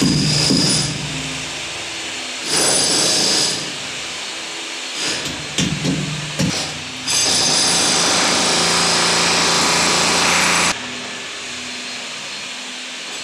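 A power tool runs in three bursts, the last and longest lasting over three seconds, with a few sharp knocks in between.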